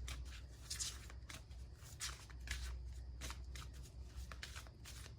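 A deck of reading cards being shuffled and handled by hand: a run of irregular, quick soft card slaps and slides.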